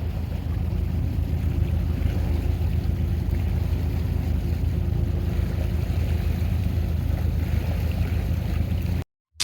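Boat's motor running steadily with wind and water noise; the sound cuts off suddenly near the end.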